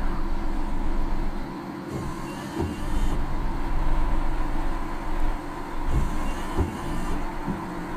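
Car cabin noise while driving on rain-soaked roads during a typhoon: a steady rumble with tyre hiss on wet tarmac and rain, broken by a few dull low thumps.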